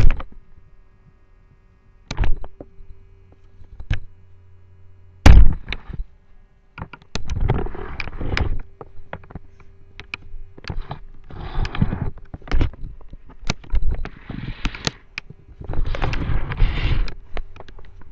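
A Yorkshire terrier playing right by the microphone: a few sharp knocks and thumps, the loudest about five seconds in, then bursts of scuffling and rustling with clicks, over a steady low hum.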